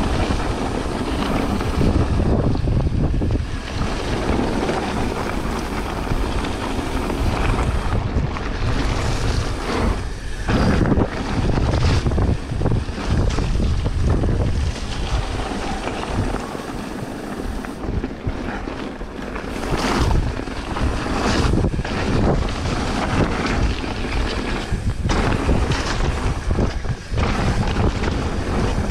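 Wind rushing over a bike-mounted camera's microphone while riding a mountain bike down a trail, with low rumble and frequent knocks from the tyres and bike over rough ground.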